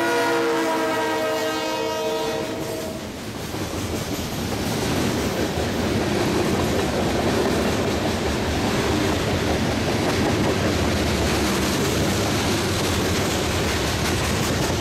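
Norfolk Southern GP38-2 locomotive blowing its horn, a chord of several tones, as it passes close by. The pitch drops as it goes by and the horn cuts off about three seconds in. After that comes the steady rumble and wheel clatter of freight cars rolling past.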